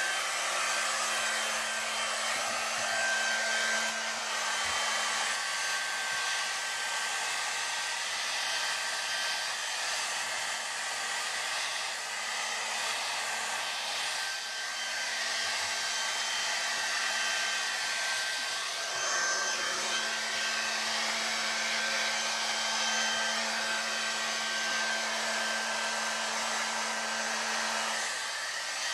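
Handheld hair dryer running steadily on a wet dog's coat: an even rush of air with a low motor hum and a thin, steady high whine.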